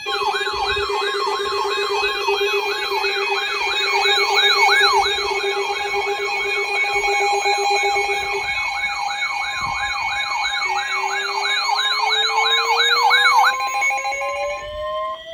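Electronic alert siren warbling fast, about two and a half sweeps a second, over steady tones, sounding an incoming severe thunderstorm warning. About two-thirds of the way in, a second tone starts sliding slowly upward in pitch, and the warble stops shortly before the end.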